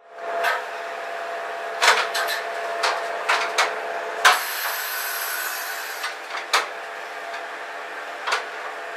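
Steady machinery hum in a locomotive cab, with a scatter of sharp clicks and knocks and a brief high hiss starting about four seconds in.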